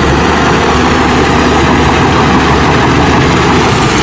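Shantui crawler bulldozer's diesel engine running steadily under load as its blade pushes rock and dirt, a loud, even, low rumble.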